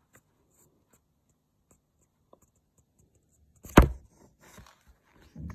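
Handling of a thick paperback book: a sharp knock about four seconds in, then light paper rustling as it is laid down and pressed open.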